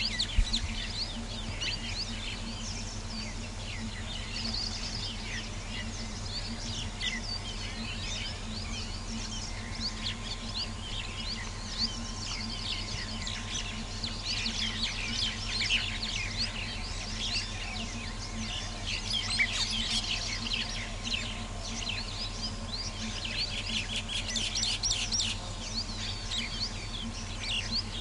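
A chorus of wild birds chirping and calling, many short high notes overlapping, busiest about halfway through and again near the end. A steady low hum runs underneath.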